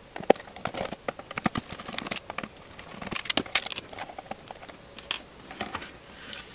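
Irregular small clicks and rattles of a screwdriver turning out the screws of a plastic console case, with the screws and plastic case parts being handled on a rubber bench mat.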